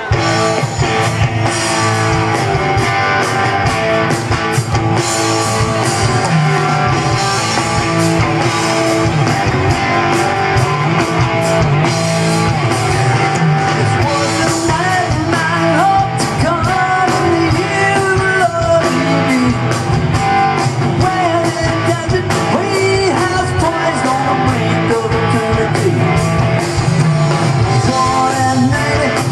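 Live rock band playing at full volume with electric guitars and drums, the whole band coming in abruptly right at the start.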